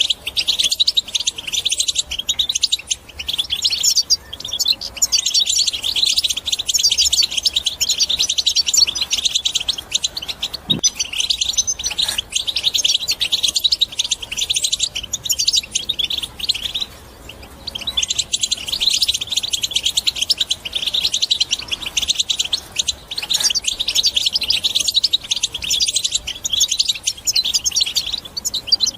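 European goldfinch singing a fast, continuous twittering song, with a brief pause about seventeen seconds in.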